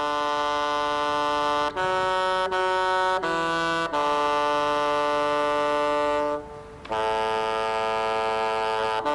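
Solo bassoon playing a slow melody of held notes, with three short notes in quick succession early on and a brief pause for breath about six and a half seconds in.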